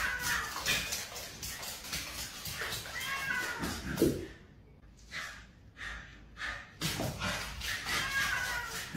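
Cat meowing in drawn-out, arching calls: once at the start, again about three seconds in and several times near the end, with a lower, louder cry about four seconds in. Short clicks and scuffles run underneath as the animals tussle on a hard floor.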